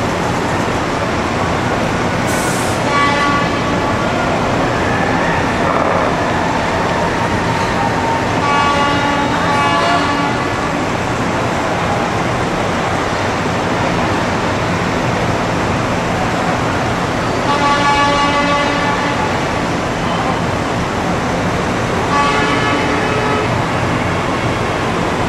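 Truck horns sounding several times, each blast a short held tone, over the steady noise of trucks rolling past at low speed.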